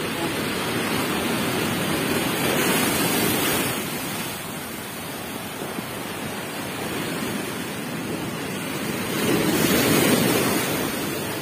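Heavy storm waves crashing and surging against the shore. The rushing swells louder about two seconds in, and again near the end as a big wave breaks over the seawall.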